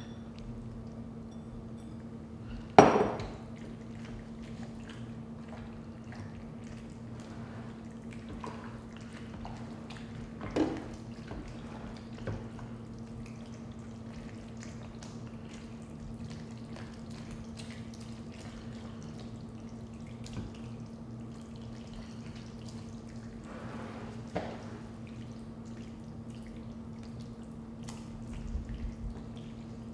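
Cooked macaroni being stirred into a thick cheesy mixture in a large mixing bowl: soft wet squishing and scraping with small clicks of the utensil on the bowl. A sharp glassy knock about three seconds in as a glass bowl is set down, and a few lighter knocks later, over a steady low hum.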